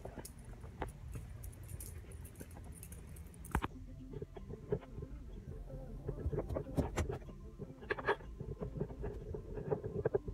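Keys jangling with rustling handling noise, then a sudden change about three and a half seconds in to a car cabin: a steady low rumble with scattered knocks and clicks from the shaking handheld camera.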